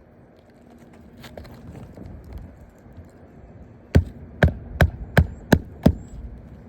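Six sharp knocks in quick succession, about three a second, after a few seconds of faint clicks and handling.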